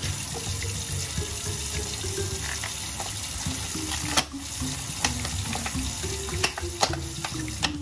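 Kitchen tap running a steady stream into a stainless steel sink, the water at first splashing over an egg being rinsed under it. A few sharp clicks sound over the running water in the second half.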